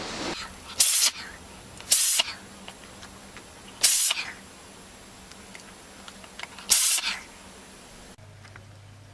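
An animal sneezing four times: short, sharp sneezes one to three seconds apart.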